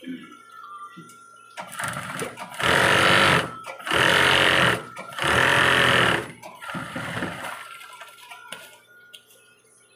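Industrial sewing machine stitching fabric in three loud runs of about a second each, with short pauses between them and quieter stitching just before and after.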